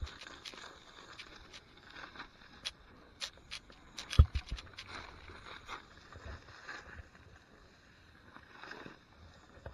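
A rider sliding through soft snow in the trees: a faint hiss of snow with scattered small clicks and knocks, and a louder thump about four seconds in.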